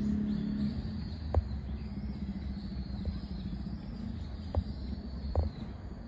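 Outdoor ambience: a steady low rumble like distant traffic, with faint high bird chirps and a few sharp taps, the loudest about a second and a half in.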